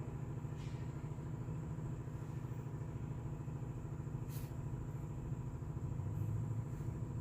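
A motor vehicle's engine idling steadily, a low rumble with a fast even pulse. There are two faint clicks, one about half a second in and one about four and a half seconds in.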